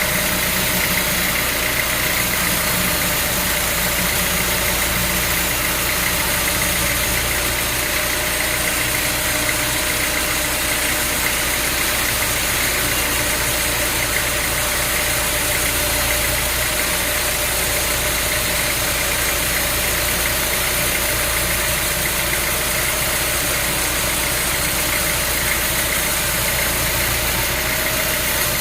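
Sawmill machinery running steadily: a constant engine-like drone with a held high whine, unchanging throughout.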